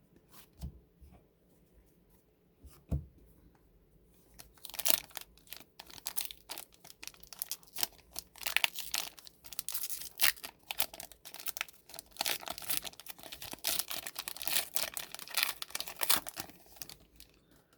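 Foil wrapper of a 2021 Upper Deck Goodwin Champions trading card pack being torn open and crinkled by hand, with rapid, irregular crackling for about twelve seconds after a few soft handling clicks.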